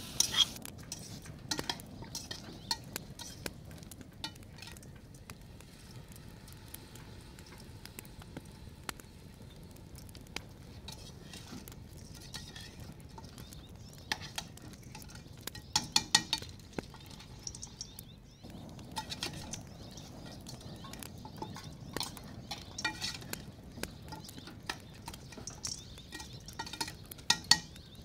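A metal spatula and ladle tapping and scraping against a stainless-steel cooking pot as food is stirred. Scattered clinks run throughout, with quick runs of ringing clinks about halfway through and again near the end.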